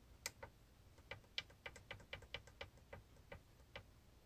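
Faint clicks of a ProtoThrottle's menu buttons being pressed, about a dozen short, irregularly spaced clicks while stepping through its function-configuration menu.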